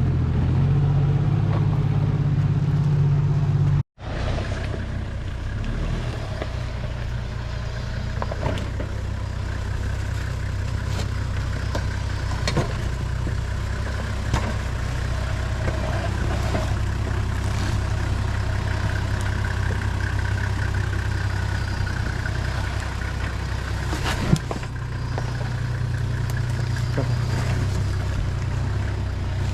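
Four-wheel-drive's diesel engine running at low, steady revs while crawling over a rough track, with a few sharp knocks and rattles from the vehicle. The sound cuts out for an instant about four seconds in.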